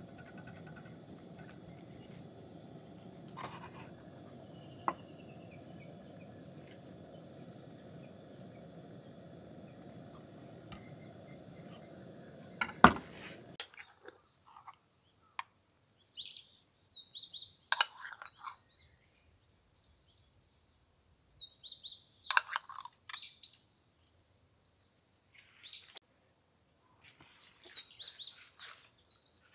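Steady high-pitched insect chirring, as of crickets, under scattered short chirps and clicks. A low background hum cuts off about thirteen seconds in, right after one sharp knock.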